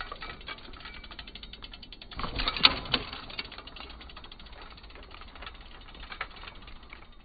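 Mountain bike's rear freehub ratcheting in rapid clicks as it coasts past over grass. The clicking grows louder and busier about two seconds in, with a sharp peak, then carries on more quietly.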